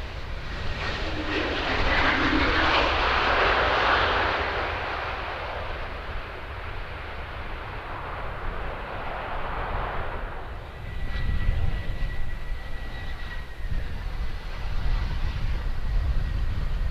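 Boeing 777 twin jet engines during landing rollout: a loud rush that swells a second or two in and fades away. After a change about ten seconds in, a Bombardier Global business jet's engines take over with a steady high whine. A low rumble of wind on the microphone runs underneath.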